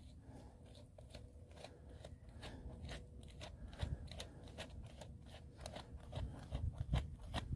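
Gloved hands working wet mud and dry, matted grass at the water's edge: irregular crunching and crackling, with low squelching thumps that grow busier near the end.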